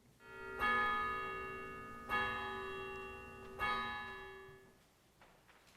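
A bell struck three times, about a second and a half apart, each strike ringing on and fading before the next.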